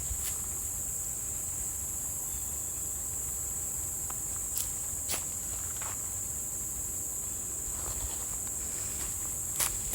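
Steady high-pitched insect chorus, with a few faint sharp clicks about halfway through and again near the end.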